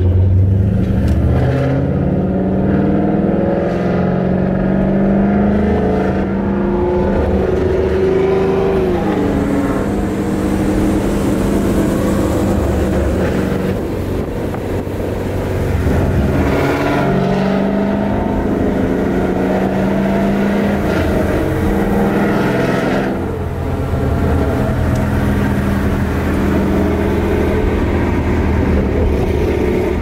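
Ford Mustang 5.0 V8 engine and exhaust heard from inside the cabin, pulling up through the revs over the first few seconds and again around 16 seconds, holding steady between, with a brief drop in revs near 23 seconds.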